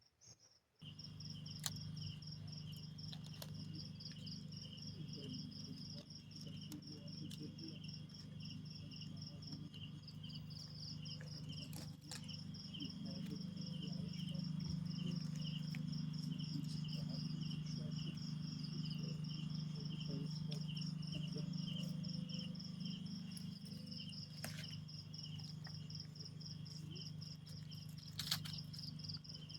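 Insects chirping in fast, even pulsing trills at two pitches, over a steady low hum. A few faint clicks are scattered through.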